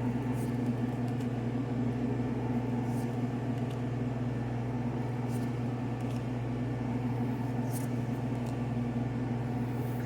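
Steady low hum of a motor or appliance, with a few faint, soft handling sounds of trading cards being shuffled through.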